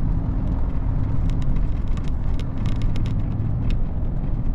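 Heavy truck cruising on the open road, heard from inside the cab: a steady low engine and road rumble, with a few faint light ticks now and then.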